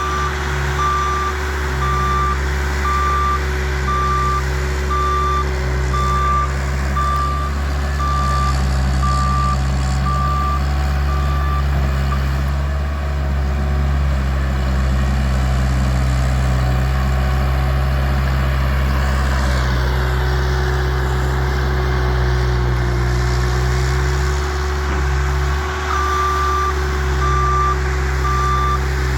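Bobcat loader engine running steadily under work, with its reversing alarm beeping at an even pace. The beeping stops about twelve seconds in and starts again near the end as the machine backs up once more.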